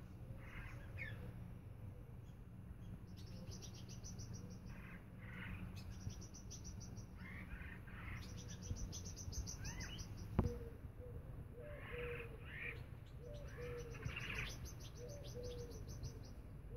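Faint bird chirps and calls, with several rapid, high rattling trills of about a second each and one sharp click about ten seconds in, over a low steady hum.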